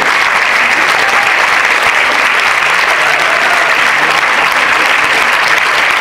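Large audience applauding steadily, dense continuous clapping that holds at a constant level.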